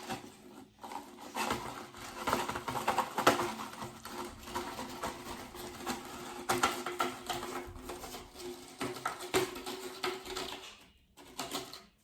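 Pringles can and chips being handled as the chips are taken out: irregular crinkling, light clicks and rustles.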